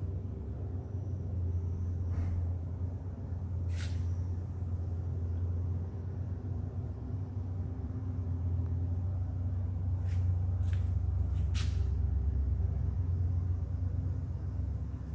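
A steady low mechanical drone runs throughout. Over it come several short hisses, three of them in quick succession later on.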